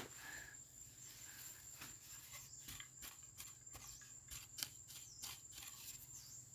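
Faint scraping and small irregular clicks of a bare hand brushing and crumbling dry soil away from wild yam roots, over a steady high-pitched insect drone.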